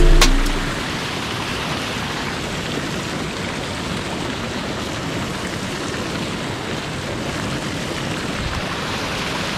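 Steady, even hiss of fast-flowing river water and whitewater.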